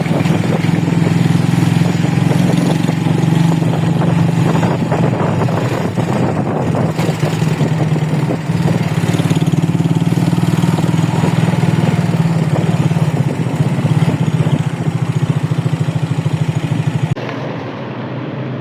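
A motor vehicle engine running steadily close by, with a fast even pulsing; it cuts off abruptly near the end.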